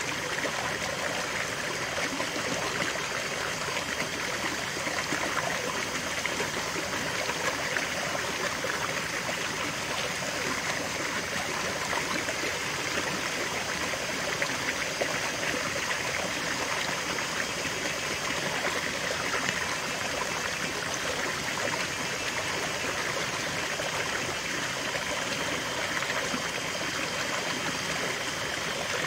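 Shallow rocky stream running steadily, water splashing and trickling over a small cascade between boulders into a pool.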